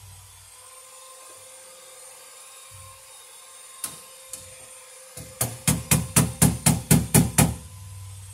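A hand tool knocking on the steel breaker panel box, seating a Romex cable connector in the panel's knockout: two single taps, then a quick run of about nine heavy knocks, roughly four a second.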